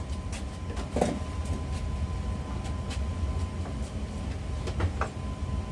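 A furnace running as a steady low rumble, with a faint steady tone, and a few scattered light clicks and knocks from plastic parts being handled.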